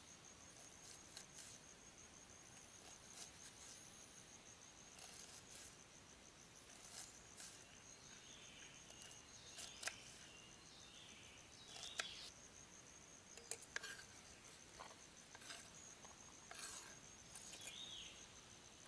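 Faint taps and scrapes of a knife dicing an onion on a wooden cutting board, a few sharp taps standing out about ten and twelve seconds in. Behind them a cricket-like insect trills steadily at a high pitch.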